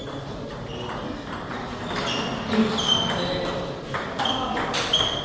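Table tennis ball clicking sharply off rackets and the table in a rally, about six short ticks at uneven spacing, over a background of hall noise and voices.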